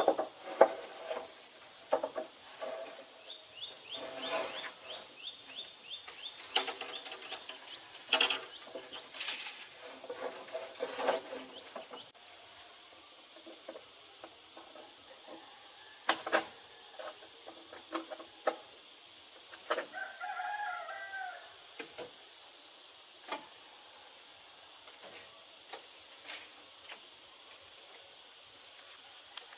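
A rooster crowing once, about two-thirds of the way in, over a steady high insect buzz. Scattered sharp knocks and clatter fill the first half.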